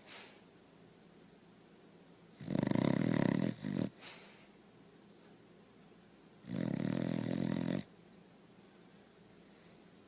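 A sleeping Small Munsterlander dog snoring: two snores about four seconds apart, each about a second long, the first ending in a short second catch.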